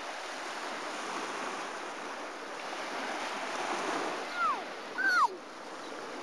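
Steady noise of sea surf and wind. Two short high cries come about four and five seconds in.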